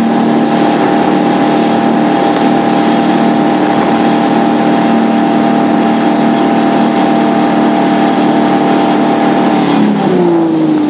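Tow boat's engine running steadily at high speed while towing a barefoot water skier, over a steady rush of wind and water. About ten seconds in, the engine note falls as the boat slows.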